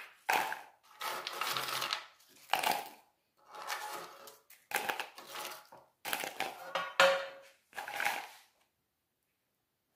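Crisp baked cassava-starch (polvilho) biscuits rustling and clattering against a plastic bowl and metal baking pan as they are scooped up and dropped in by hand, in a series of short bursts, with one sharp knock near the end.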